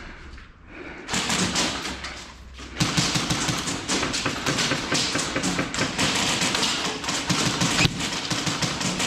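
Rapid, dense tapping and thudding of airsoft guns firing and BBs striking walls and surfaces, in quick irregular runs with a short lull about two and a half seconds in.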